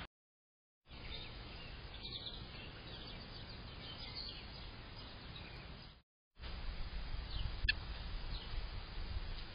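Faint bird chirps over steady outdoor background noise and low rumble, with one brief, sharper chirp about three quarters of the way in. The sound cuts to dead silence twice: at the start and again about six seconds in.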